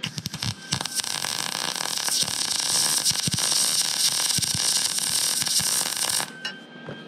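MIG welding arc on thin sheet steel, with the welder on its lowest heat setting and .023 wire: a few sputtering pops as the arc strikes, then a steady dense crackle that cuts off suddenly about six seconds in.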